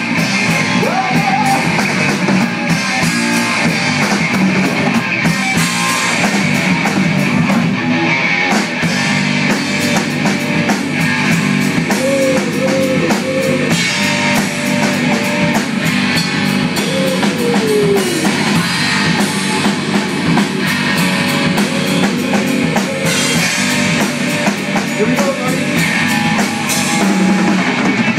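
Live rock jam of electric guitar through a Marshall amplifier and a Tama drum kit played hard with busy cymbals, at full loudness. The guitar plays bent lead notes around the middle.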